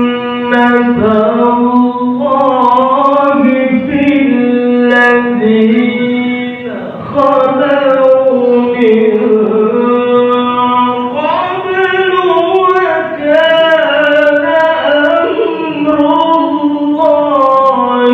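Melodic Qur'an recitation (qiro'ah) by a single voice: long, ornamented held notes that slide and waver in pitch, broken by short breaths between phrases.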